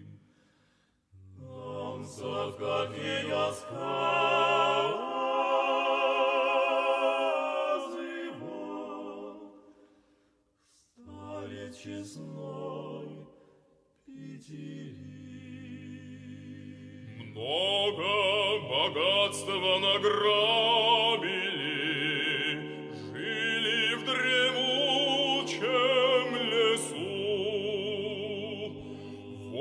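Vocal music: a woman singing with strong vibrato over a steady low accompaniment, in sections separated by short breaks about a second in, around ten seconds in and around fourteen seconds in.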